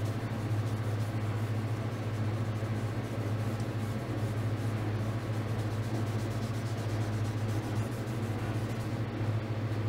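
Steel wool scrubbing the face of a solid-mass flywheel: a faint, uneven scratchy rubbing that cleans the clutch friction surface after a spray of brake cleaner. Under it runs a steady low hum, the loudest thing throughout.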